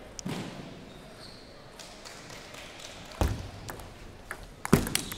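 A few scattered knocks and thuds of a table tennis ball in a hall, over faint background chatter. The loudest comes near the end.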